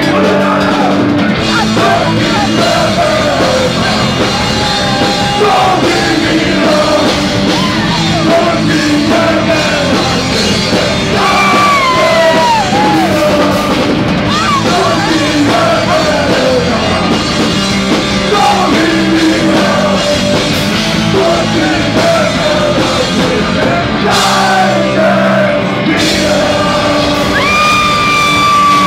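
A rock band playing live at full volume, with drums, bass and electric guitar under a man singing. The music is continuous and dense, with gliding, bending notes in the middle and a long held note near the end.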